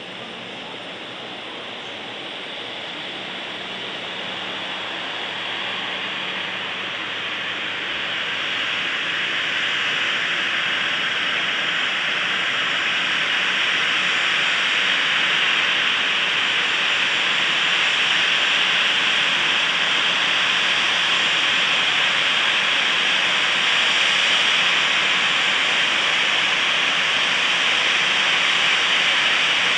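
Air Dolomiti Embraer 195 regional jet's turbofan engines at taxi power, a steady jet hiss. It grows louder over the first dozen seconds as the jet taxis toward the microphone, then holds steady.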